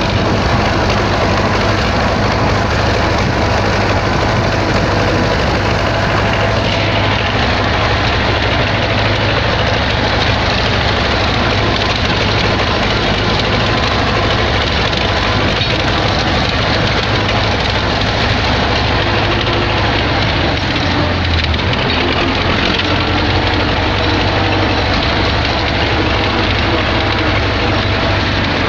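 MTZ-80 tractor's four-cylinder diesel engine running steadily, with a strong low drone and a dense rattle throughout.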